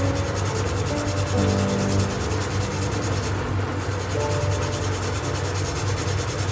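A steady, rough rubbing or scraping noise, with soft background music holding long, sustained notes beneath it.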